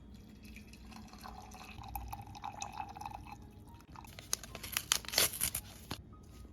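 Liquid pouring into a cup for about two seconds, followed by a quick run of sharp clicks and clinks.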